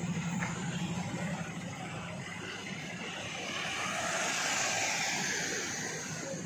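Road traffic on a city street: vehicles running past, with one car passing close and loudest about four to five seconds in before fading.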